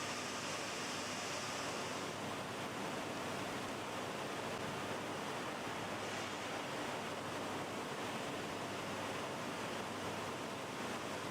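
Steady, even rushing noise with no distinct events and no clear pitch.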